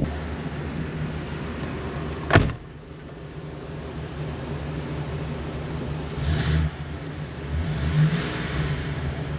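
Ford 7.3L "Godzilla" V8 running steadily with only its exhaust heard and no metallic rattle from under the floor, now that a loose bracket has been taken off the heat shield. A sharp knock comes about two seconds in, and the sound swells briefly twice later on.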